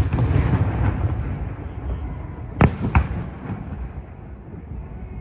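Aerial fireworks shells bursting. A sharp bang opens, followed by a rumbling, crackling tail, then two more sharp bangs about a third of a second apart a little past halfway.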